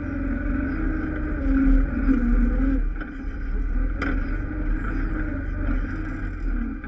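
ATV engine running while riding over rough ground, its level rising and falling with the throttle. A single brief click about four seconds in.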